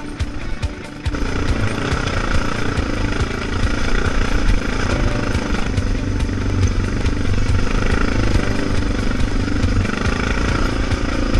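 Dual-sport motorcycle engine running under load as it climbs a rough, rocky trail, heard as a steady, uneven rumble from the bike. The sound gets louder and fuller about a second in.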